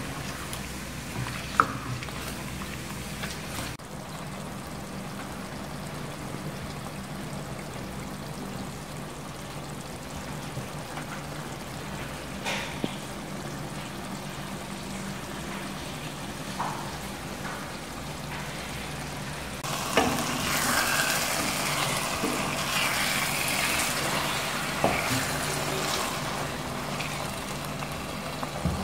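Chicken curry sauce simmering and sizzling in a pot on an electric stove, over a low steady hum, with a few sharp clicks. The sizzling grows louder and busier about twenty seconds in.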